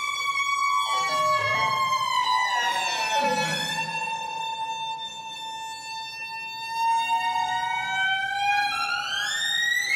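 Violin played with long sliding notes through live electronic processing, the camera-tracked body movement of the player setting how strongly the sound is processed. Several layered tones slide slowly downward, hold, then glide upward near the end, like a siren.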